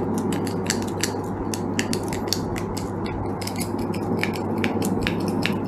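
Fishing reel being cranked by hand, giving a quick, irregular run of light mechanical clicks over a steady low hum.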